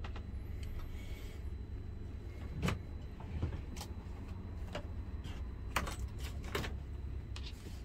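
Philco 37-84 cathedral tube radio just switched on and warming up: a steady low mains hum through its field-coil speaker, with a scattered handful of sharp clicks and crackles from a couple of seconds in.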